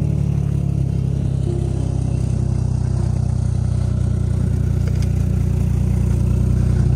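Snowmobile engine idling steadily.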